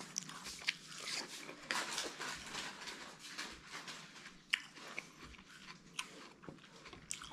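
Watermelon being bitten and chewed close to the microphone: irregular crunching with sharp clicks, the loudest about four and a half and six seconds in.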